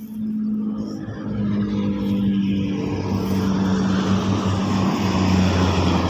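An engine running with a steady tone, growing louder over the first few seconds.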